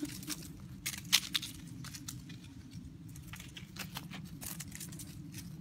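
Puppies' feet and claws pattering and scuffing on asphalt scattered with dry leaves: irregular light clicks and crunches, with one sharper click about a second in.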